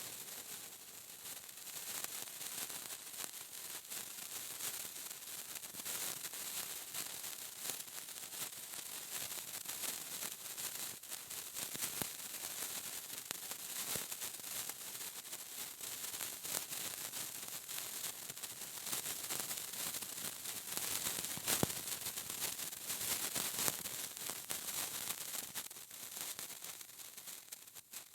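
A fire sparkler burning: a steady fizzing crackle of countless tiny spark pops that stops abruptly near the end.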